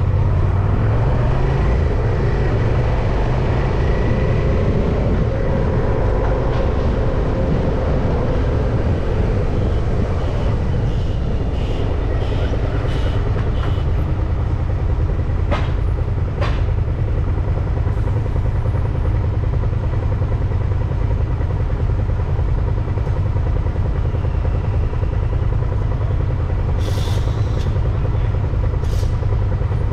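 Steady rumbling wind and road noise on a moving bicycle's microphone, with traffic around it. Two sharp clicks come about halfway through.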